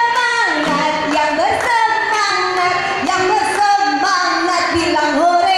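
A high voice singing a slow melody, holding long notes and sliding between them, echoing in a large hall.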